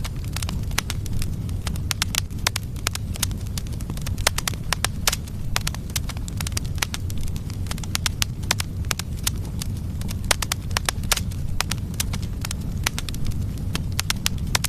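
Firewood logs burning in a fireplace: a steady low rumble of flames with frequent sharp pops and crackles, several a second.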